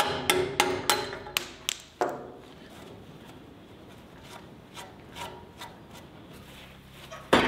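A quick run of sharp metal taps with a ringing tone, about three a second, as the old wheel bearing is knocked out of the band saw's cast frame. Then a cloth rubs and wipes the empty bearing bore, and one loud knock comes near the end.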